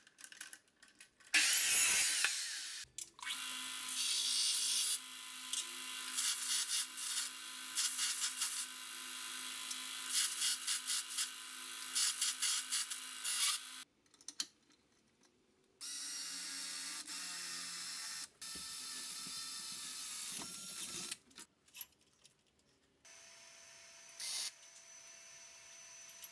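DeWalt abrasive chop saw running for about ten seconds as it cuts a steel rod, and stopping suddenly. A second bench power tool then runs for about five seconds, and a fainter steady hum follows near the end.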